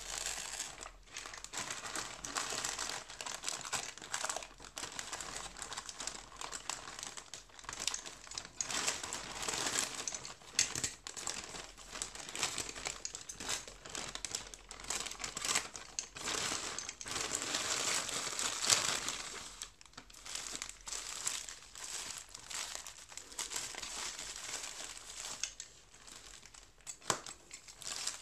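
Plastic postal mailer bag crinkling and rustling as it is handled and opened, with irregular crackles throughout, then paper wrapping rustling as the contents are pulled out near the end.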